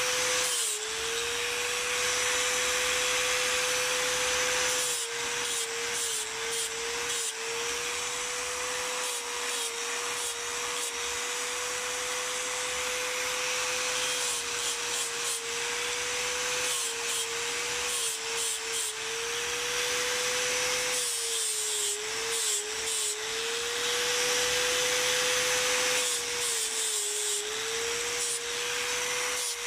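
Electric angle grinder running with a steady whine while its abrasive disc grinds water buffalo horn, giving a rasping hiss; the whine dips in pitch several times as the disc is pressed harder into the horn.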